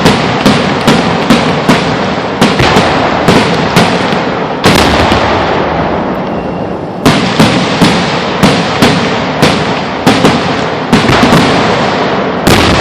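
A fireworks display: many loud bangs of bursting fireworks in quick succession, two or three a second, over a continuous crackling rumble. There is one big bang about a third of the way in, then a lull of a couple of seconds before another rapid run of bangs.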